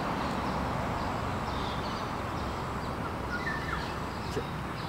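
Steady outdoor background noise with small birds chirping now and then, and a brief falling chirp about three and a half seconds in.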